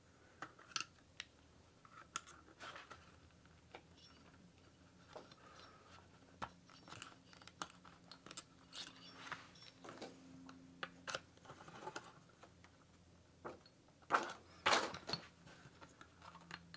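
Faint, scattered small clicks and scrapes of a small slotted screwdriver prying the factory chip up out of its socket on a Digifant ECU circuit board, with two louder scraping noises near the end.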